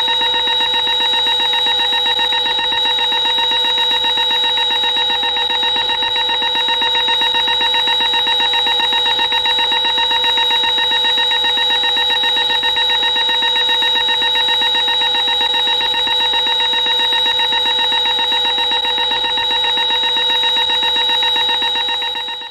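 Sci-fi alarm sound effect: a loud, steady electronic tone with a fast warbling pulse and a slowly wavering middle pitch, cutting off suddenly at the end.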